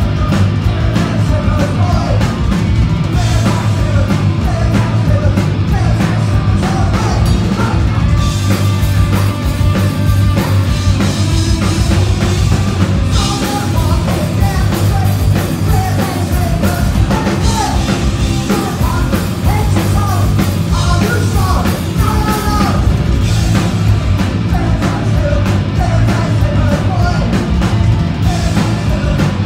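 Punk rock band playing live and loud: a singer shouting the vocals into a microphone over electric guitar, bass and a drum kit.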